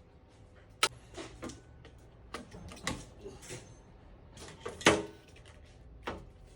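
Scattered sharp metal clicks and knocks from a car strut assembly and tools being handled on a bench, the loudest about five seconds in.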